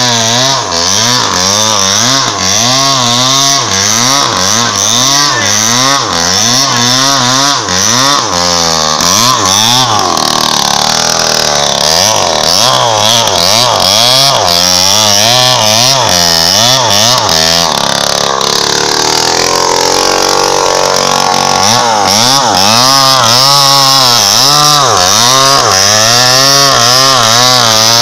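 Two-stroke chainsaw cutting into the base of a teak trunk, the engine at high revs with its pitch wavering rapidly up and down as the chain bites. Around the middle the pitch drops lower and steadies for several seconds as the saw is held deeper in the cut, then the wavering returns.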